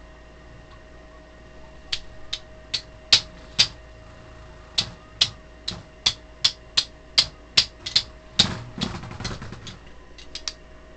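Two Beyblade tops, Salamander Ifrit and Orochi Leviathan, clashing as they spin in a plastic stadium. Sharp clacks come scattered at first, then in an even run of about two and a half hits a second, followed by a brief rattling clatter and a few last clicks.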